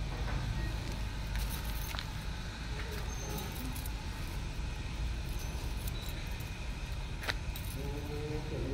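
Steady low background rumble, with a few light sharp clicks and faint rustling over it.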